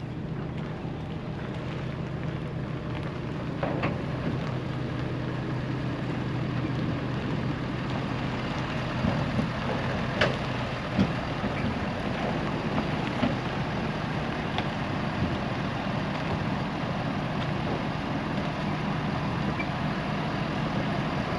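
Vehicle engine running steadily with a constant low hum, a few light clicks and knocks over it.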